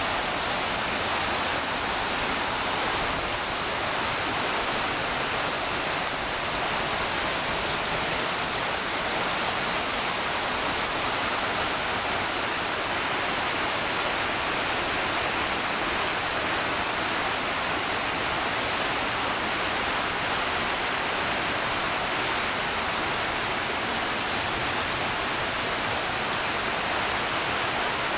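Steady rush of whitewater from the cascades of Josephine Falls, the creek pouring over and around boulders.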